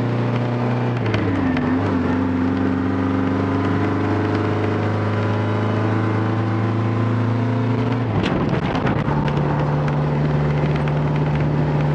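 Old dump truck's diesel engine heard from inside the cab, pulling steadily. Its note dips about a second in and changes sharply about eight seconds in as the driver shifts gears through the main and two-speed Browning auxiliary transmissions.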